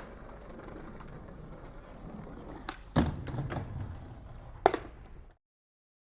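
Skateboard rolling with a low, steady wheel rumble, broken by sharp knocks of the board about three seconds in and again near five seconds. The sound cuts off suddenly shortly before the end.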